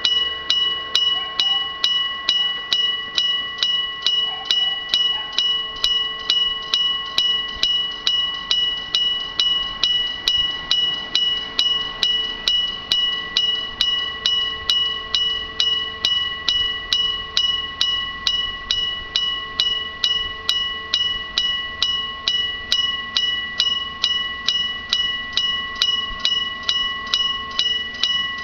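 Electric-bell level-crossing alarm striking steadily, about two and a half strokes a second, each stroke ringing with several clear tones: the warning that the crossing is closing for an approaching train.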